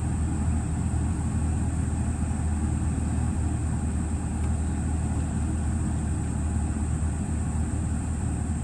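Audi TT engine idling steadily, an even low hum with no change in speed.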